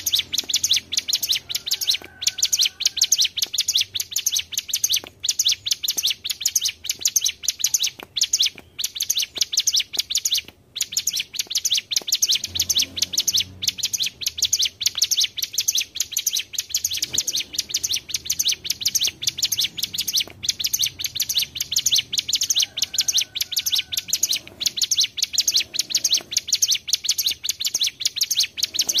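Ciblek gunung (hill prinia) birds singing a fast, near-unbroken rolling chatter of rapid high notes, with only a few brief breaks.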